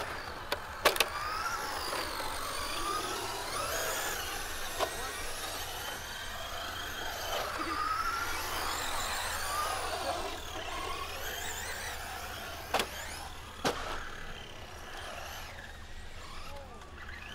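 Electric RC car motor whining, its pitch sweeping up and down as the car speeds up and slows, with a few sharp knocks from the car hitting the concrete, one near the start and a couple later on.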